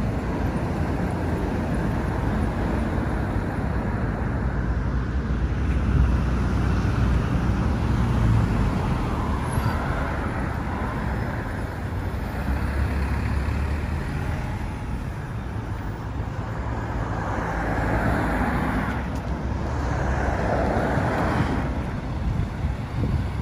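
Street traffic: cars, vans and minibuses running along a busy road, a steady rumble of engines and tyres that swells now and then as vehicles pass.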